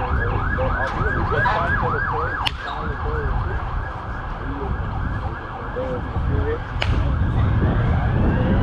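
Emergency vehicle siren in a fast yelp, about four sweeps a second, fading in the middle and changing to a slower rising wail near the end. Two sharp cracks of a bat hitting a baseball, about 2.5 s and 7 s in, over a low wind rumble on the microphone.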